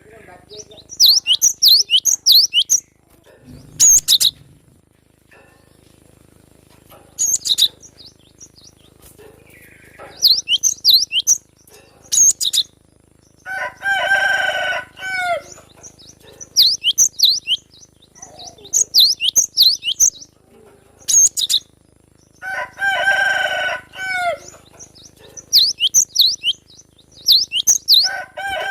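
A cinereous tit (gelatik batu) singing in repeated short bursts of rapid, sharp, high notes. Twice, about halfway and again later, a longer and lower call from another bird sounds for about a second and a half. A short dull thump comes near the start.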